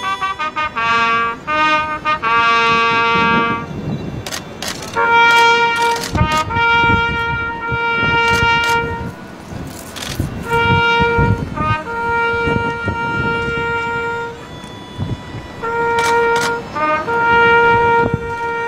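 Music led by a wind instrument holding long steady notes, broken now and then by quick ornamental notes, with sharp hits and low thuds beneath.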